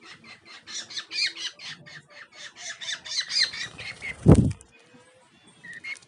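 Pet parrot squawking in a rapid string of short, harsh calls, about six a second, for around four seconds. About four seconds in there is a single loud thump.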